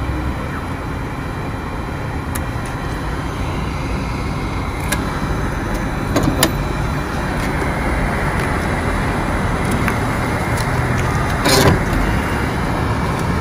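ATM working through a cash withdrawal: a steady mechanical whir, with sharp clicks about six seconds in and a louder clunk near the end as the cash dispenser presents the notes.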